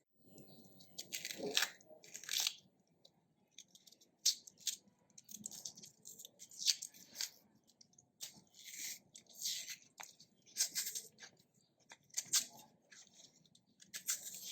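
Crunchy scraping and tearing strokes at irregular intervals, roughly one a second, from a knife working through raw cassava root.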